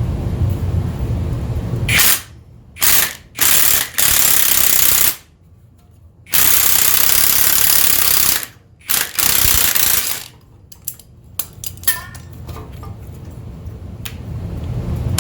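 Ridgid High Torque cordless impact wrench hammering in a series of trigger pulls. Short bursts come first, then two longer runs of one to two seconds, then two brief bursts, followed by a few scattered metallic clicks.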